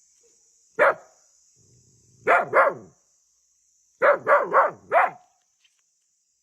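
An animal giving short, sharp bark-like calls, each falling in pitch: one, then a pair, then a quick run of four. The calls are labelled as frightened.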